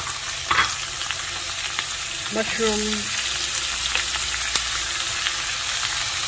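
Chopped vegetables (carrot, capsicum, corn and sliced mushrooms) sizzling steadily in hot ghee in a wide, shallow pan, with a continuous hiss and fine crackling.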